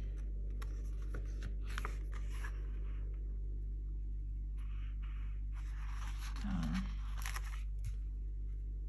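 Paper sticker sheets being handled: soft rustling and light peeling clicks as stickers are lifted off the sheet and pressed onto a planner page, over a steady low hum.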